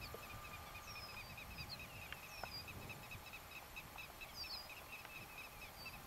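Faint prairie evening ambience: birds giving short, high, downward-slurred whistles about once a second, over the steady, fast pulsed chirping of insects.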